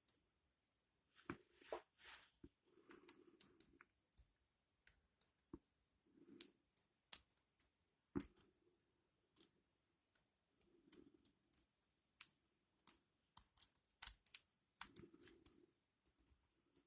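A lock pick working the pins inside an ASSA Ruko 2 padlock during single-pin picking: faint, irregular small metallic clicks and ticks, with a few soft low rustles between them.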